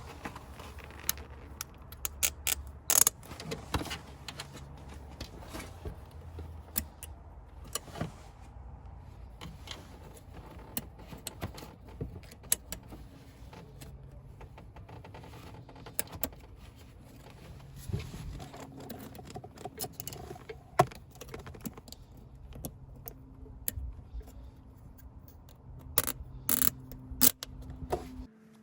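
Metal hand tools and parts clinking and tapping irregularly while work goes on in a car's engine bay, with a cluster of sharp clinks about 3 s in and another near the end. A steady low rumble runs underneath.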